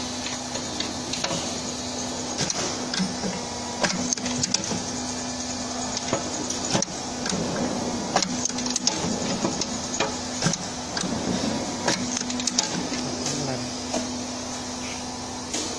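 Automatic-feed rivet machine setting rivets through a brake lining into a brake shoe: a steady hum under irregular sharp clacks of the riveting head, roughly one every second or so, as each rivet is driven.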